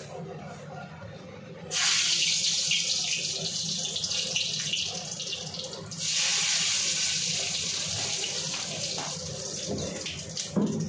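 Whole spices sizzling as they are dropped into hot oil in an aluminium kadai. The hiss starts suddenly about two seconds in, flares again about six seconds in as more goes in, then slowly dies down.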